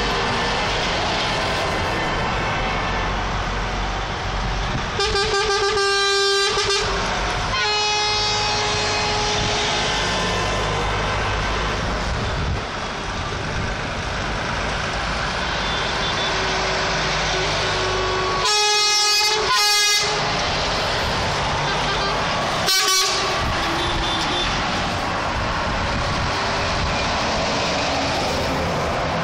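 Semi-truck tractor units driving past with their diesel engines running, sounding air horns: a long blast about five seconds in, a shorter one near eight seconds, a double blast around nineteen seconds, and a short toot near twenty-three seconds.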